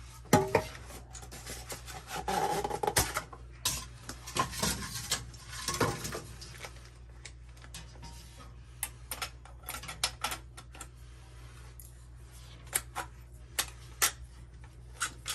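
Hands and tools handling metal parts of a blower motor assembly: scattered sharp clicks and knocks, with stretches of rubbing and scraping in the first half and fewer clicks later, over a steady low hum.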